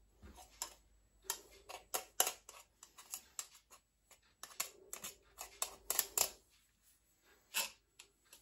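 A knife trimming excess shortcrust pastry around the rim of a metal pie dish: a run of irregular quick clicks and short scrapes as the blade meets the rim.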